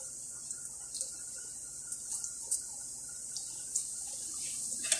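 Bitso dough sticks deep-frying in a pan of hot oil: a steady sizzle with scattered sharp pops and crackles.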